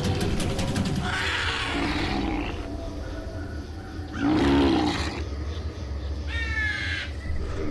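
Scary sound-effects track played through a speaker. It opens with a rapid rattle of clicks and a breathy hiss, then a loud roar about four seconds in and a short high screech near the end, over a steady low hum.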